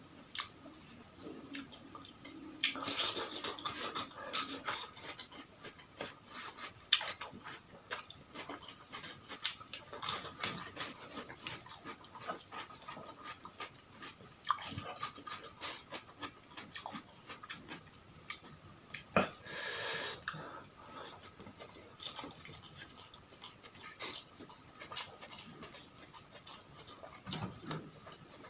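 Close-miked eating: irregular chewing and mouth smacks with crisp clicks and crunches, denser a few seconds in and again around the middle.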